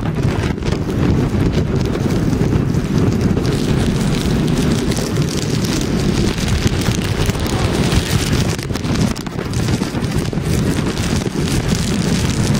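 Hurricane wind buffeting the microphone in a loud, steady rumble, with rain driving against the camera.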